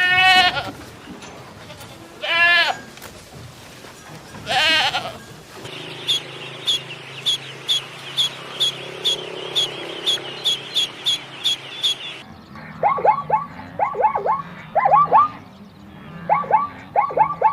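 Goat bleating: three loud, wavering bleats about two seconds apart. A stretch of steady hiss with about two ticks a second follows, then short high chirping calls in quick groups of two or three.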